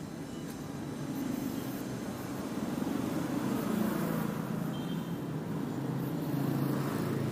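Motor traffic on a city street: vehicle engines running and passing close by, a steady low rumble that swells from about a second in and grows louder toward the middle.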